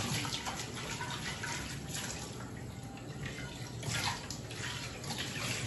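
Kitchen tap running into a stainless-steel sink, the water splashing as dishes are rinsed by hand.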